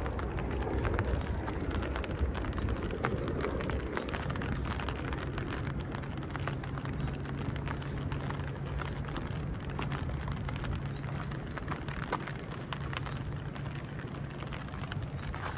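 Steady rain falling, with a dense patter of drops on hard surfaces. A low rumble fades over the first few seconds, and a steady low hum comes in about five seconds in.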